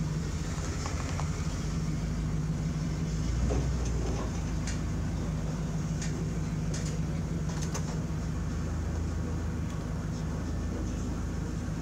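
A steady low mechanical hum, like an engine idling, with a few faint light ticks.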